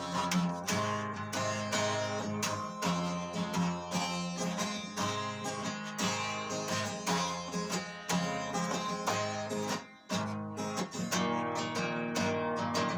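Music with a strummed acoustic guitar, strokes falling in a steady rhythm, briefly dropping away about ten seconds in.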